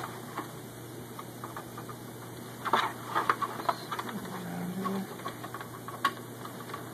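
A few sharp plastic clicks and snaps as an Xbox 360's side-plate clips are pried loose with a screwdriver: a cluster of them in the middle and one more about six seconds in.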